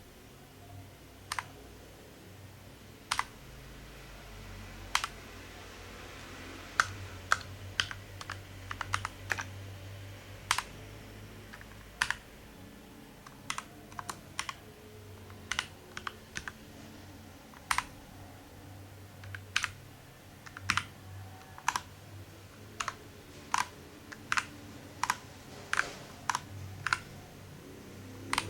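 Keys being typed on a Keychron mechanical keyboard: separate, unhurried keystroke clicks at an uneven pace, with a few quicker runs about a quarter of the way in.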